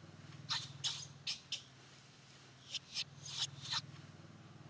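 Newborn macaque infant giving short, high-pitched squeaks and cries in two quick runs of about four each.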